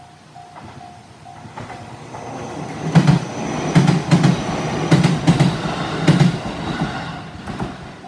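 Electric train of the JR Iida Line passing through a level crossing. Its wheels knock over the rail joints in quick pairs and are loudest from about three to six seconds in, then the sound fades. The crossing's warning bell rings about twice a second at the start and is drowned out as the train arrives.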